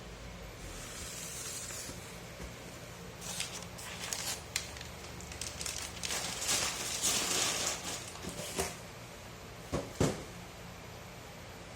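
Packaging being handled during an unboxing: irregular rustling and crinkling with scattered clicks and taps, busiest in the middle, and two sharp clicks near the end, over a faint steady low hum.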